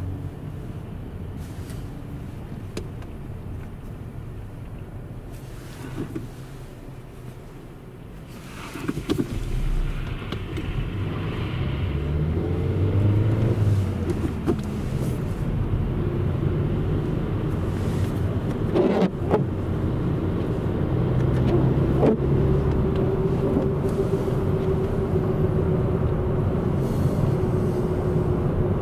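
Car running and tyres rolling on a snowy road, heard from inside the cabin. The engine note climbs as the car speeds up about a third of the way in, then holds steady, with a couple of brief knocks about two-thirds of the way through.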